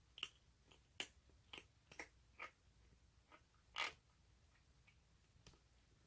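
Ginger tabby kitten chewing its food: a run of small, sharp, crunchy eating clicks at an uneven pace, the loudest a little under four seconds in.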